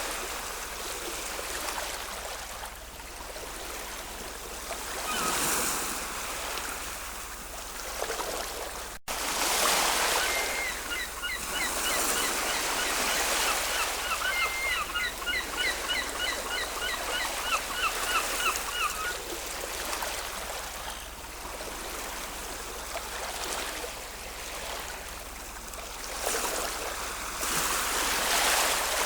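Ocean waves washing on a shore in a steady rush, with surges swelling about five seconds in, around ten seconds in and near the end. For a while in the middle a bird calls in quick repeated short notes over the surf.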